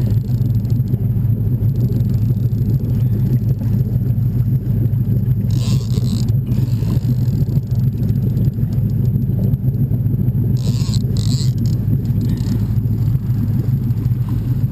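Boat motor running steadily with a low rumble, with brief hissing rushes about five and a half and ten and a half seconds in.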